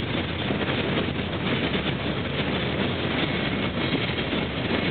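Mostly empty freight gondola cars rolling past, a steady clatter of steel wheels running on the rails.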